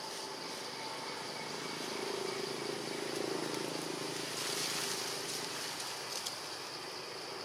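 A motor vehicle's engine running on the road, a low hum growing a little louder a couple of seconds in and easing off again, over steady outdoor background noise.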